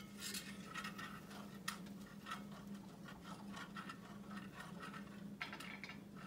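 Wire whisk scraping and stirring a flour roux in a cast iron skillet: faint, irregular, repeated scrapes of wire on iron.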